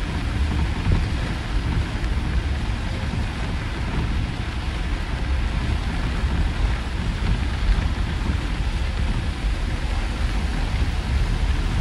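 Steady low rumble of a city bus under way, heard from inside the cabin, with an even hiss of rain and tyres on the wet road.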